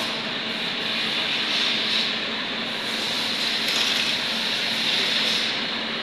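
Nissan Patrol's wheel spinning on the lift, driven by the running engine, with a steady whirring hiss from the hub and a low steady hum under it. The hub noise is the one being traced to a worn wheel hub bearing that is due for replacement.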